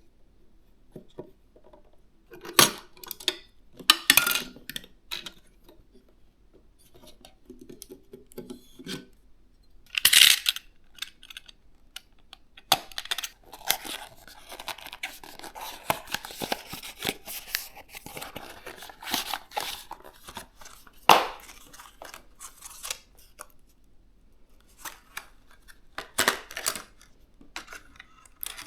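PC parts and their packaging being handled: rustling and tearing of packaging, with scattered sharp clicks and knocks, and a longer stretch of steady rustling in the middle.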